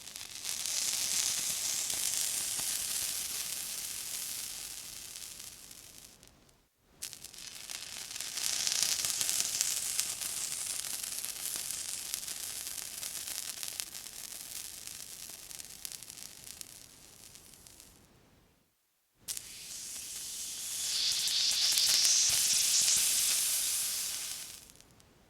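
Water sizzling in three separate bursts, one after another. Each is a bright hiss that swells up quickly and then slowly dies away over several seconds.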